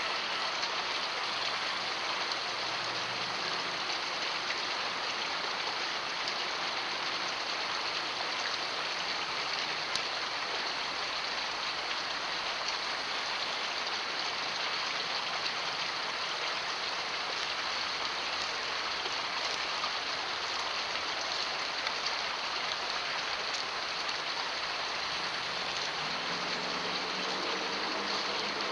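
Steady rushing noise of water, even and unbroken. A faint low tone joins near the end.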